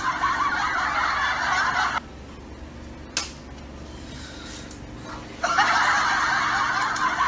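A flock of birds calling all at once in a dense din that stops abruptly about two seconds in and starts again just as abruptly near the end, with a single sharp click in the quieter gap between.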